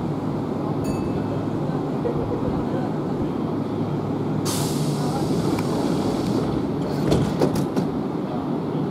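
Kintetsu electric commuter train standing at the platform with a steady low hum. About four and a half seconds in, a burst of compressed-air hiss from the train lasts about two seconds, followed by a few sharp clunks near the end.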